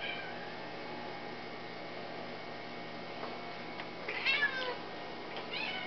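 Tabby-and-white house cat meowing: a longer meow about four seconds in and a shorter one near the end.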